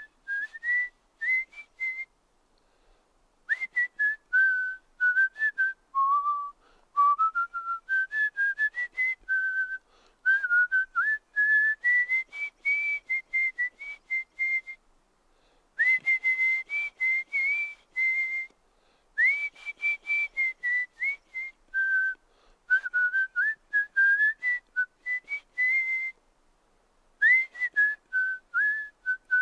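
A person whistling a tune: one clear, pure tone in quick runs of short notes that hop and slide up and down, in phrases broken by pauses of about a second.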